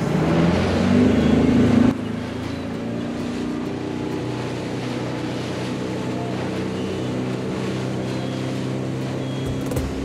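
The Yamaha 150 outboard motor of a small speedboat revving up as the boat pulls away. About two seconds in the sound drops suddenly, then the motor runs steadily under a hiss of water and wind.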